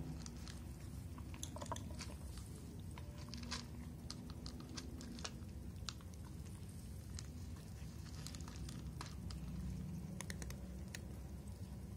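Cats eating dry kibble from a bowl: irregular, sharp crunches and clicks of chewing, over a steady low hum.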